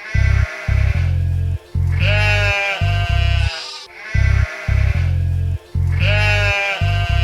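Nursery-rhyme backing music with a steady bass line, and a sheep bleating over it about every two seconds.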